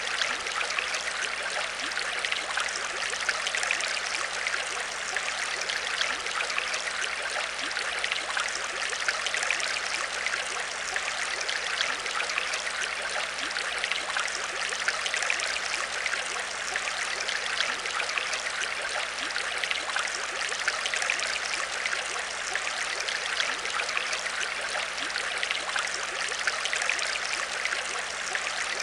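Aquarium water trickling and splashing steadily, with a faint low steady hum beneath it.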